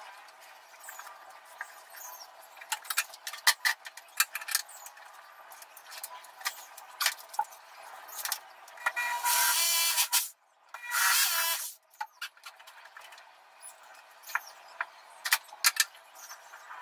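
Power drill driving screws as a cabinet door's concealed hinges are fitted: two short runs of about a second each just past the middle, with light clicks and knocks of hardware and tools being handled before and after.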